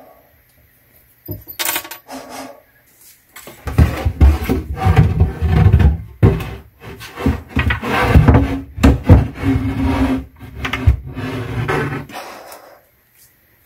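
Melamine-faced particleboard cabinet shelf being forced loose from its glue and nails and dragged out of the cabinet: a sharp knock a little over a second in, then several seconds of irregular wooden scraping and rubbing that stop near the end.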